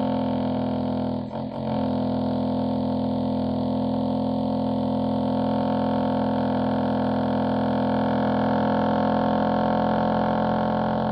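Electric drill boring into a thick concrete wall: a steady, loud droning whine that dips briefly about a second and a half in, then runs on evenly.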